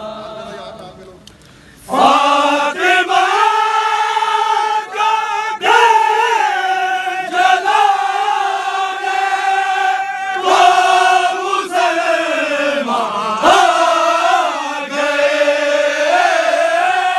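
A group of men chanting a noha (Shia lament) together in loud unison, with long held notes. The chant starts about two seconds in after a brief lull.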